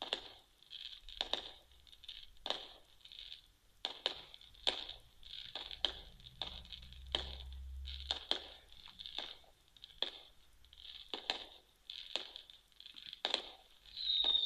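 Fireworks bangs and crackles replayed through a phone's small speaker: irregular sharp cracks, one every half second or so, with a low rumble in the middle and a whistle starting near the end.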